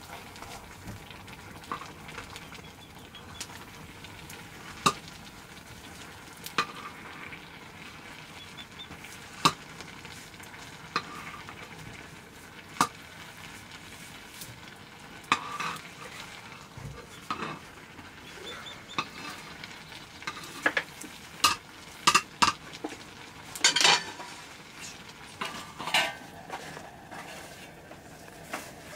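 A wooden stick stirring food boiling in a metal pot over a wood fire, knocking now and then against the pot with sharp clicks over a steady hiss. Toward the end the clanks come thicker and louder as the lid goes onto the pot.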